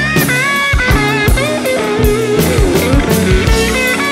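Rock music: electric guitar lines with bending notes over a drum kit.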